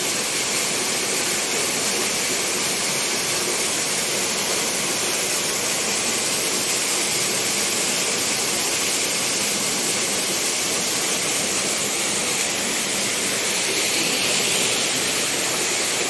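Waterfall about 20 metres high, its falling water making a steady, unbroken rush with a strong hiss.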